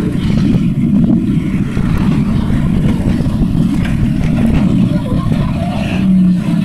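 Banger-racing buses' engines running, a loud continuous low rumble with a rough, rapid pulse, and a short steady hum near the end.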